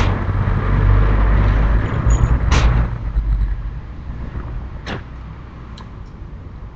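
A heavy low rumble that eases off after about three seconds, with a sharp knock about two and a half seconds in, another about five seconds in, and a fainter tap just before six seconds.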